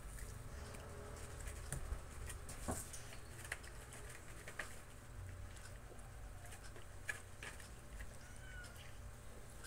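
Faint scattered clicks and rustles of a disposable face mask being handled, its ear loops pulled and tied, over a steady low rumble.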